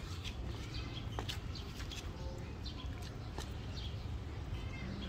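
Tabby cats biting and chewing grilled meat off a wooden skewer: scattered sharp clicks of teeth and meat, over a steady low rumble, with faint short high chirps, likely birds.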